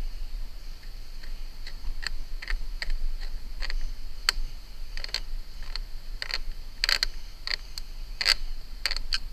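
Irregular light metallic clicks and ticks, about two a second, as a metal clamp ring is fitted and tightened around the joint of a stainless steel chimney pipe.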